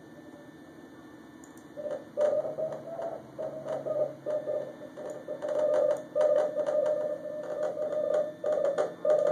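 Morse code (CW) signal on the 40-metre amateur band received through a SoftRock software-defined radio kit: a tone of about 600 Hz keyed on and off in dots and dashes. It comes in about two seconds in, after faint band hiss.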